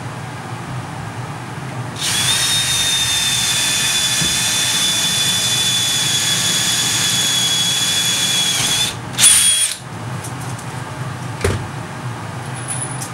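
Cordless drill motor running at a steady speed for about seven seconds as a high, even whine. Its pitch sags slightly just before it stops, and a second short, loud burst follows about half a second later.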